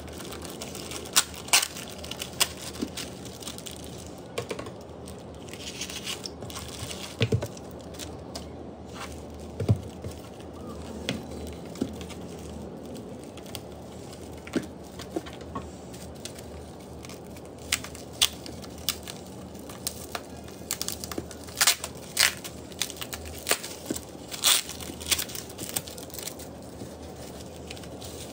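A plastic mailer bag being torn open and a bubble-wrapped package being unwrapped by hand: rustling and crinkling plastic with many sharp, irregular crackles, thicker in the second half.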